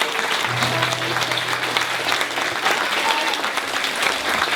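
Audience applauding in a standing ovation, with music playing underneath.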